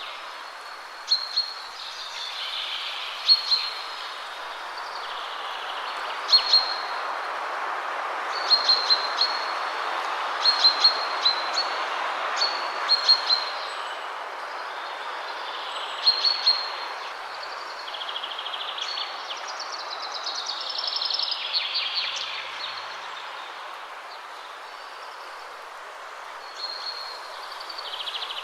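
Birds chirping: short, high calls repeated in scattered clusters over a steady background hiss.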